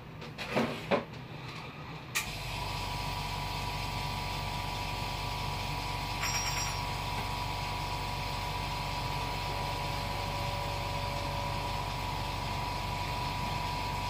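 A few light knocks, then a click about two seconds in as a small electric machine switches on, running with a steady low hum and a thin whine.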